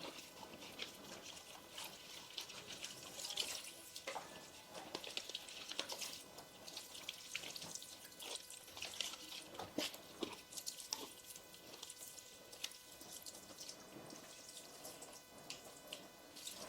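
Water from a tap splashing into a sink while a bleach mixing plate is rinsed and washed by hand, faint, with irregular splashes throughout.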